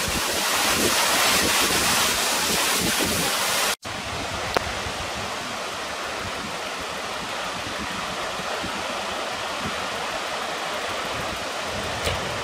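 Muddy floodwater rushing under a bridge, a loud steady roar mixed with wind buffeting the microphone. About four seconds in it cuts off abruptly to a quieter, even hiss of wind and rain, with a single click shortly after.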